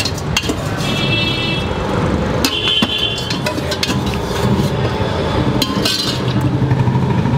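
Street traffic: motor vehicle engines running, with a low engine hum that grows heavier near the end. Scattered sharp clicks and a few brief high tones cut through it.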